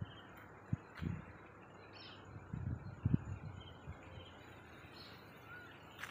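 Small birds chirping in short, scattered calls over a faint outdoor hiss, with a few brief low rumbles of wind on the microphone.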